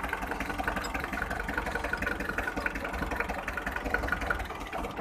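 Hyundai 1.25-ton truck's four-cylinder diesel engine idling rough, with a steady drone and a dense, uneven ticking clatter. The engine is running on a dead cylinder (number 3), later traced to a broken rocker arm.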